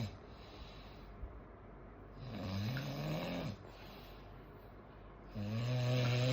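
A person snoring heavily in sleep, like a diesel engine: two long snores about three seconds apart, the first rising in pitch, the second steadier and louder.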